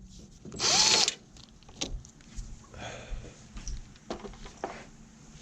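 A cordless drill runs briefly about a second in, its motor pitch rising and then falling, as it works on the third brake light's mounting fasteners. Faint clicks and knocks follow as the parts are handled.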